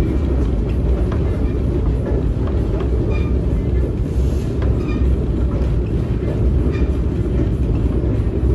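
Moving passenger train: a steady low rumble of the running train, with scattered light clicks and knocks from the wheels and car.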